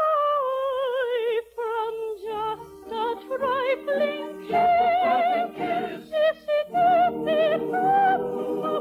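Operetta song with orchestra: a soprano voice singing with wide vibrato, a held note gliding down at the start, then a string of shorter notes over sustained orchestral chords.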